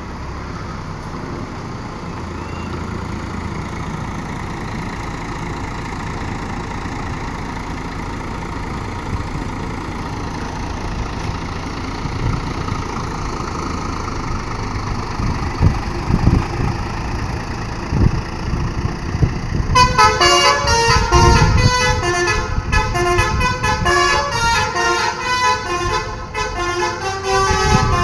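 Road traffic and a large vehicle's engine rumbling, growing slowly louder, then about twenty seconds in a bus's multi-tone 'telolet' musical horn plays a rapid melody of short notes to the end.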